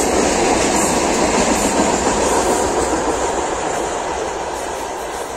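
A short freight train of tank wagons hauled by a VL10U electric locomotive, its wheels rumbling on the rails as it runs past and away, steadily fading.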